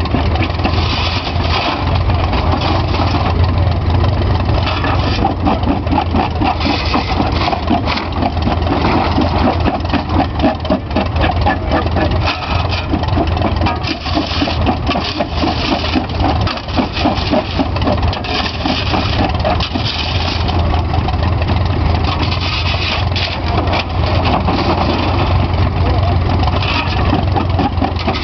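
Farmall tractor engine running steadily, belt-driving an old flywheel rock crusher, over the crusher's continuous clatter as it breaks rock.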